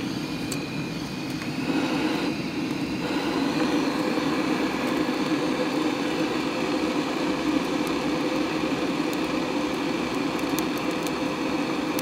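Handheld butane gas torch on a canister burning steadily, its flame aimed into kindling in a brick stove's firebox to light it. It grows a little louder about two seconds in.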